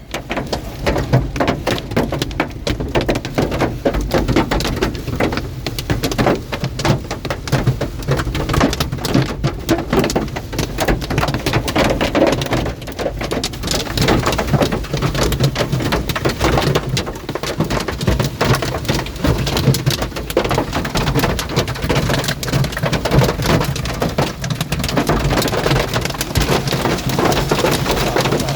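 Large hailstones pounding down in a dense, continuous clatter of hard impacts, mixed with heavy rain.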